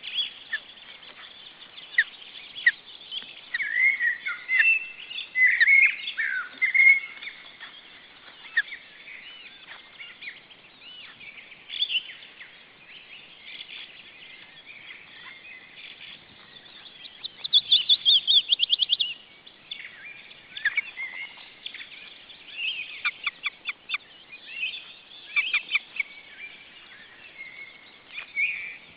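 Ospreys calling at the nest: a string of high chirping whistles, with a loud, fast run of repeated notes a little over halfway through.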